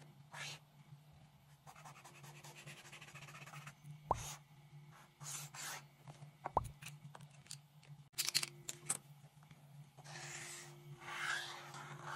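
Brauberg paint marker scratching across paper: a rapid scribbling stretch, a few sharp clicks and knocks, then a longer smooth stroke near the end, over a steady low hum.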